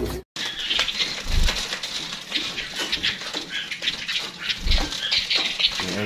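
Many small caged birds chirping, a dense scatter of short high chirps and ticks, with two low thumps, one about a second and a half in and one near five seconds in.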